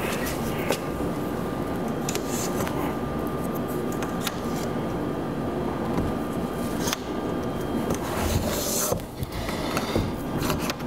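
Locking clips clicking and rubbing as they are fitted to the aluminium frame joints of a folding display board, with a few sharp clicks over a steady rumbling background noise.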